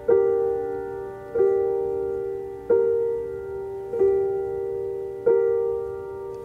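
Piano playing the same chord about every 1.3 seconds, each one ringing and fading before the next, in an instrumental gap of a slow song.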